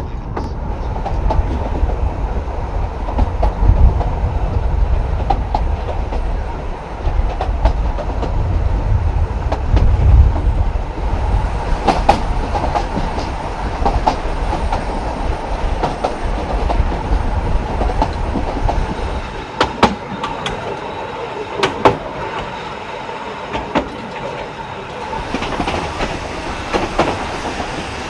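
Two-foot narrow-gauge railway carriage running along the track: a steady rumble of wheels on rail, with sharp clicks over the rail joints. The low rumble eases about two-thirds of the way through, and the clicks stand out more towards the end.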